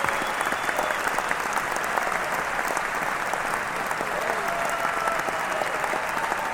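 A large crowd clapping densely and steadily, with cheering voices mixed in.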